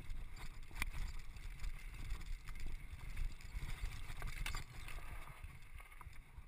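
Downhill mountain bike descending a rough dirt trail at speed: wind buffeting the microphone and a low rumble from the tyres and suspension, with sharp rattles and knocks from the bike over bumps. The noise eases near the end as the bike rolls out onto smooth tarmac.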